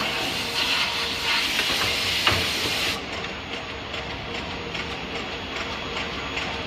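Forge-shop machinery noise: a steady hiss with one sharp metallic knock about two seconds in, changing abruptly to a quieter mechanical rattle a second later.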